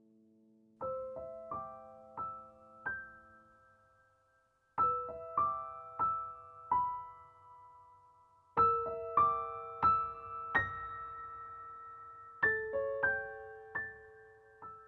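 Background piano music: slow, gentle phrases of single struck notes, each left to ring and fade, with short pauses between phrases.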